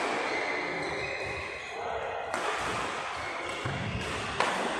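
Badminton rackets striking the shuttlecock in a doubles rally: three sharp hits about two seconds apart over a steady background hiss, the last hit the loudest.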